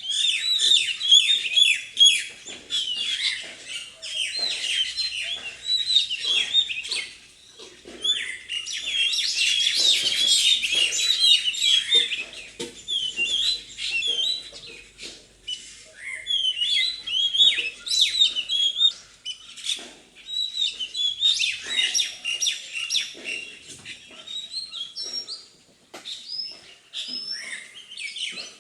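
Parrots chattering: a rapid, overlapping stream of short high chirps that comes in bursts, easing off briefly a few times.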